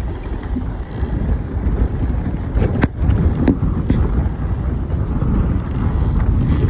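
Gale-force hurricane wind buffeting the microphone: a heavy, unbroken low rumble, with a few brief knocks a few seconds in.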